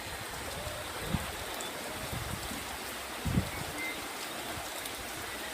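Rain falling steadily, an even hiss, with two short low thumps, about a second in and just past three seconds.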